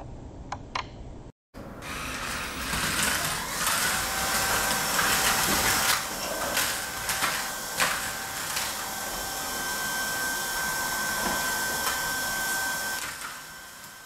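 Sharp RACTIVE Air cordless vacuum running with its motorised brush head on a tiled floor. It starts about a second and a half in, its motor whine gliding up to a steady pitch, and a few sharp knocks come from the head partway through. It fades out near the end.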